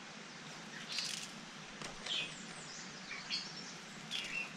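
Wild birds chirping and calling off and on, a few short notes that drop in pitch, over a soft steady outdoor hiss.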